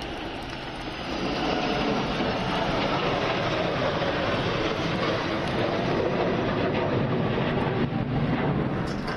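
Aircraft flying past at a display: loud, even engine noise that swells about a second in and then holds steady.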